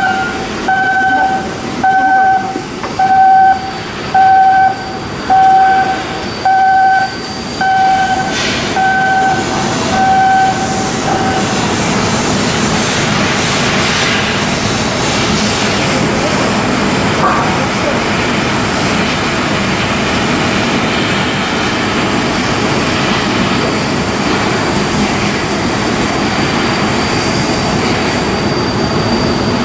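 An electronic two-tone warning beeper sounding about once a second for the first eleven seconds or so, over heavy machinery noise; after it stops, a steady rumbling machinery noise carries on.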